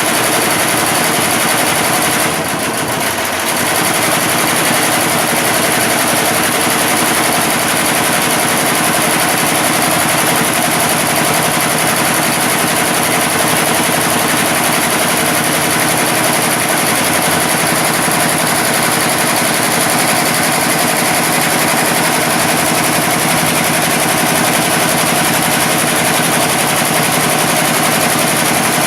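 Computerised embroidery machine stitching at speed, a steady fast mechanical clatter, with a brief drop in level about two seconds in.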